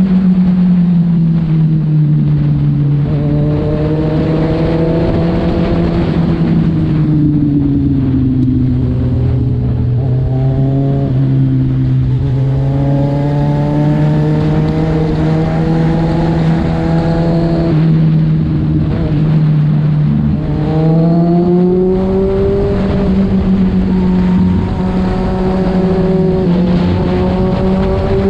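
Kawasaki Z1000's inline-four engine and exhaust running at a steady cruise of about 90 km/h. The engine note sinks slightly over the first few seconds, holds, then climbs about twenty seconds in as the throttle is opened, and settles again.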